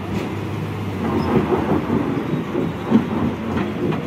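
Diesel engine of a heavily overloaded bulk cement tanker truck, carrying about 56 tonnes on a 26-tonne rating, labouring as it is driven forward over soft ground. A steady low hum turns to a louder, rougher rumble about a second in.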